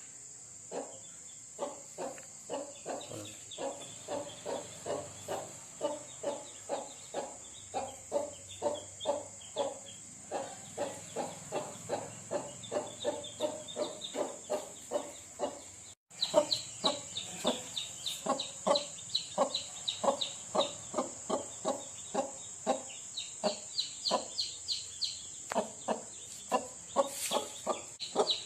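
A broody hen clucking in a steady run of short clucks, about two to three a second, while chicks peep high over it. The peeps come through more plainly after a brief break about halfway through.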